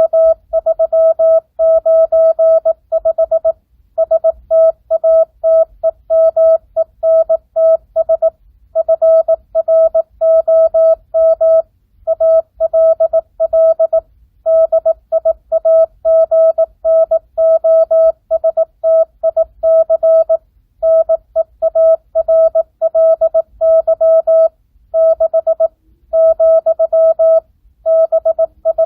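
Morse code practice: a single steady mid-pitched tone keyed on and off in fast dots and dashes, with short pauses between the groups of characters.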